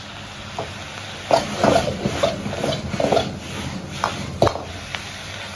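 Metal wok ladle scraping and knocking against a wok as garlic scapes and shredded pork are stir-fried, in repeated strokes starting about a second in, with a few sharp clinks in the second half, over a steady low hum.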